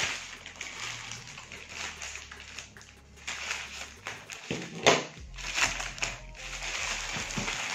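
Grey plastic courier mailer crinkling and crackling as it is handled and torn open by hand, with a louder sharp crackle about five seconds in.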